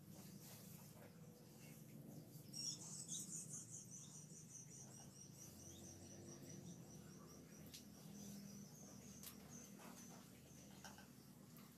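Near silence, with a faint, high trill of rapid short notes from a small animal. It starts a few seconds in, slowly falls in pitch and fades out over several seconds. A few faint clicks.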